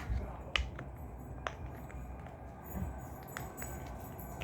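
Small plastic fidget toys being handled and sorted, giving a few scattered light clicks and taps.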